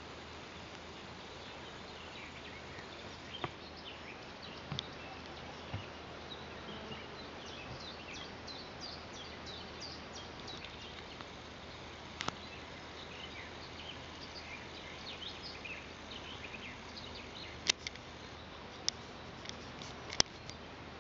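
Outdoor garden ambience: a steady low hiss with many quick, high chirps of small birds throughout, and a few sharp clicks, the loudest ones near the end.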